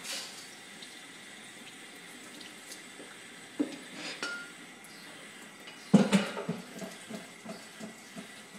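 Kitchen clatter of pans and utensils over a steady low hiss: a few knocks, then one loud clank about six seconds in, followed by a run of light taps.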